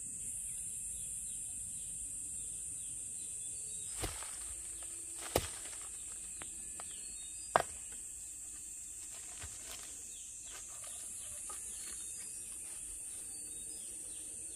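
Steady, high-pitched insect drone with many short falling chirps over it, and three sharp knocks at about four, five and a half and seven and a half seconds in, the last the loudest.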